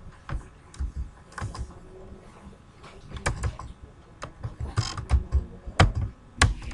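Keys clicking on a computer keyboard as a command is edited and typed: single keystrokes and short runs at an irregular pace, with pauses between.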